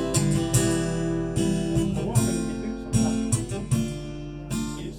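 Acoustic guitar strummed in a steady rhythm, ringing chords between sung lines of a song.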